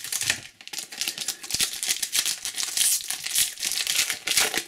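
Trading card pack's wrapper being crinkled and torn open by hand, a steady rapid crackle.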